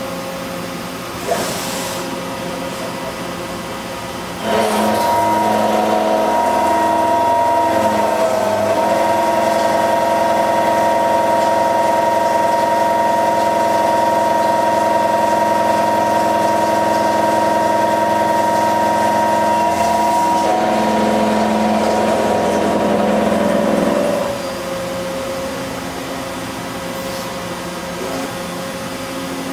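Kitamura Bridgecenter-10 machining center face milling a metal block with a face mill on its BT50 spindle. A steady running hum grows louder about four seconds in as the cut begins. A steady whine with several pitched tones then holds for about twenty seconds before falling back to the quieter running sound near the end.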